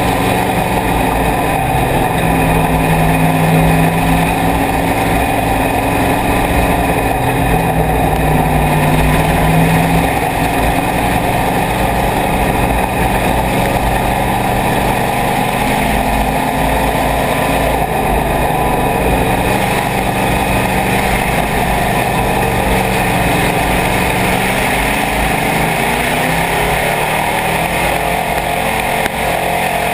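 IMCA Hobby Stock race car's engine running hard at racing speed, heard from inside the cockpit, its pitch rising and falling as the driver gets on and off the throttle.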